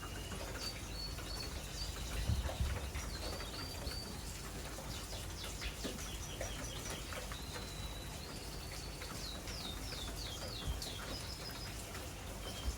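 Small birds chirping and twittering: many short high notes and quick downward-slurred calls, over a faint low steady background.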